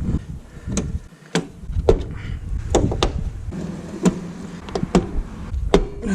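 Irregular sharp clicks and knocks, about a dozen in six seconds, of small plastic trim fasteners and parts being handled and tried, over a low hum.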